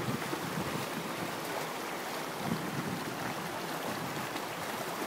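Steady rushing of flowing water, like a creek running over rocks.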